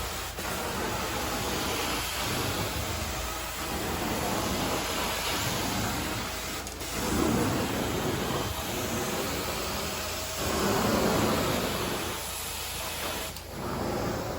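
Carpet cleaning machine running with a steady rushing hiss of air and suction, swelling louder every few seconds as it works across the carpet.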